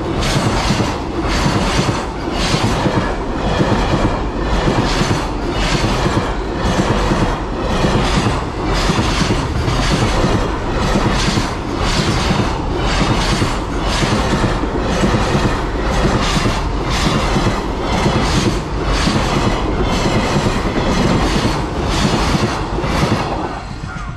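Container freight train's wagons rolling past, their wheels clattering over the rail joints in a steady, even rhythm. It fades slightly near the end.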